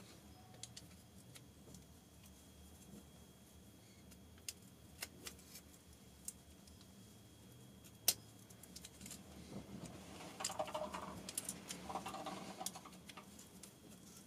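Faint metallic clicks and clinks of hand tools and parts on the Headshok damper as a part is tightened up. A few scattered taps come first, one sharper click about eight seconds in, then a busier patch of light rattling for a few seconds near the end.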